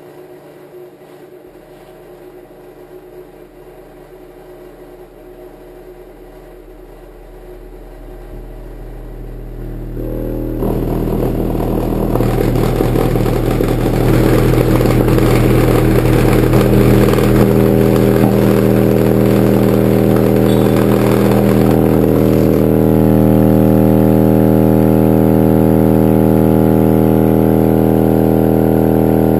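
15-inch subwoofer playing a steady 40 Hz test tone. It is turned up slowly, swelling from about eight seconds in to a loud, steady drone. A buzzy edge sits on the tone and eases a little past twenty seconds.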